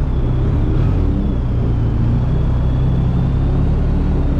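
2019 BMW R1250RT's boxer-twin engine running steadily at low revs while the bike rolls slowly, heard from the rider's seat.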